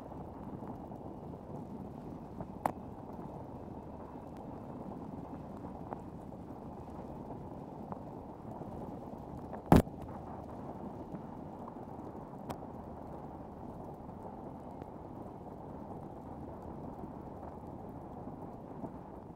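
Water washing along a kayak's hull as it is paddled on calm water, a steady muffled sound, with a few sharp knocks; the loudest knock comes about ten seconds in.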